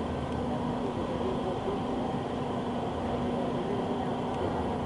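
Steady mechanical hum with a constant low tone, unchanging throughout, like machinery or an engine running.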